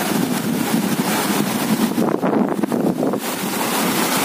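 Steady wind noise on the microphone over the wash of sea waves.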